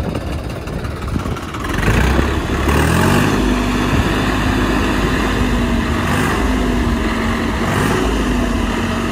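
Swaraj 855 FE tractor's diesel engine revving up about two seconds in, then running steadily at higher revs.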